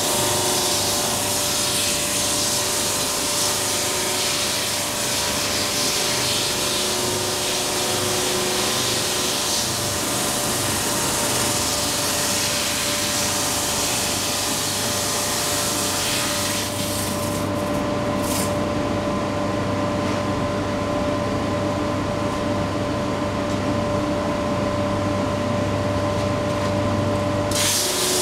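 JET 22-44 OSC oscillating drum sander running steadily, its motor giving a constant hum, with a loud hiss of the abrasive drum sanding a ziricote board as it feeds through. About 17 seconds in the hiss falls away, leaving the machine's hum, and near the end it comes back as the next board goes through.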